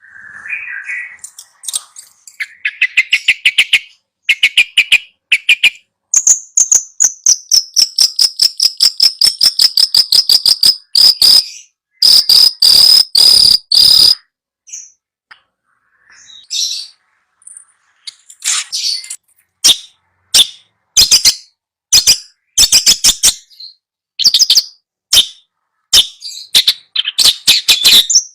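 Recorded songbird song played as a masteran, a tutor recording for a long-tailed shrike: fast chattering notes, a long high trill that slowly falls in pitch, a loud rapid rattle about halfway through, then sharp call notes in quick clusters.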